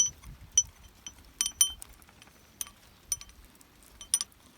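Several sharp metallic clinks with a bright ring, coming at irregular intervals, as a chain breaker is tightened down onto a heavy steel roller chain.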